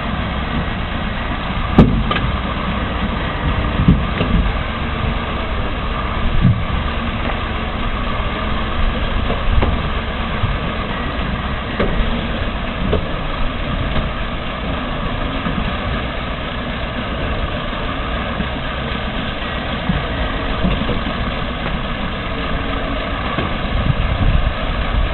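Engine of a heavy machine running steadily, with a few short knocks and clunks over it, the sharpest about two seconds in.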